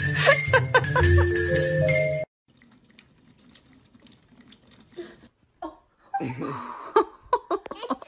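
Bright marimba-type mallet-percussion music over a bass line, cutting off suddenly about two seconds in. After it come faint small clicks of cats lapping at a thin stream from a kitchen tap, with a louder run of licking clicks and water noise near the end.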